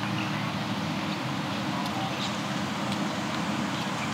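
A vehicle running steadily, heard from on board: an even low hum with a hiss over it and no change in pitch.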